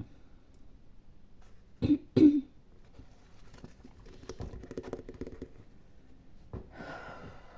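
A person coughs twice in quick succession about two seconds in, then faint scratching and tapping sounds follow.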